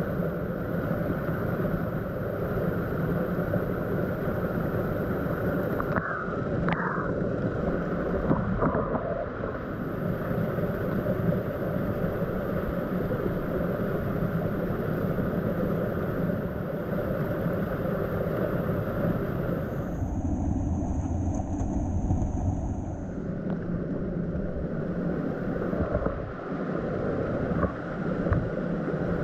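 Whitewater from a small stream cascade rushing steadily over rocks and a fallen log, close up. The rush turns deeper for a few seconds about two-thirds of the way through.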